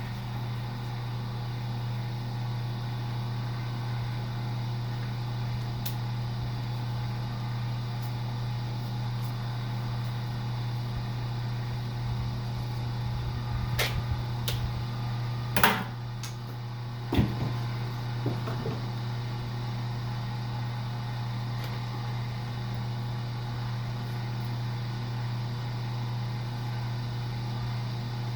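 Electric wire stripping machine running with a steady motor hum while wire is fed through it. A few sharp clicks and knocks come through the middle.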